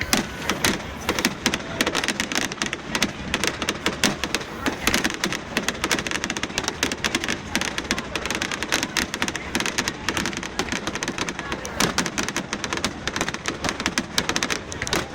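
Fireworks display: a dense, unbroken barrage of bangs and crackles, many to the second.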